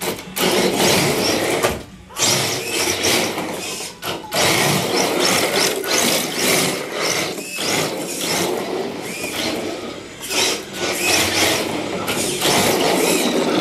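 Electric RC drift car (Exceed RC Drift King) running across a hardwood floor, its motor and gears whirring in bursts as the throttle is opened and let off, with short breaks between bursts.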